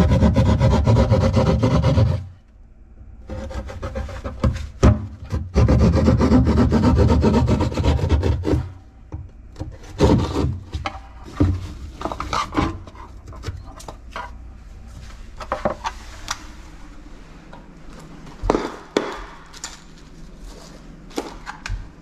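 Cordless power saw cutting through drywall in two main bursts, the first in the opening seconds and the second from about six to eight and a half seconds in, with a short run between. After that come quieter, irregular scraping and rubbing strokes against the drywall.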